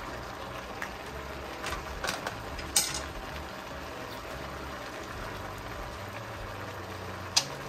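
Pot of vegetable beef soup bubbling steadily in a Dutch oven, with several light clicks in the first few seconds, a sharp knock a little under three seconds in and another near the end.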